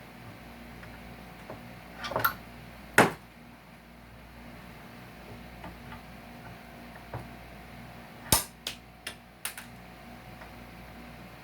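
Sharp clicks and knocks of pliers working nails and staples out of salvaged wood. There is a short scrape about two seconds in and a loud snap a second later, then near the end a loud click followed by three lighter ones. A faint steady hum runs underneath.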